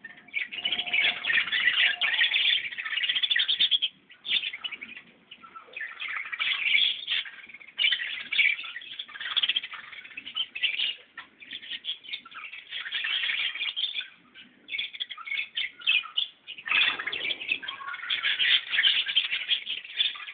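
Many small birds chirping and twittering together in dense, rapid, high-pitched bursts of a few seconds each, with short lulls between.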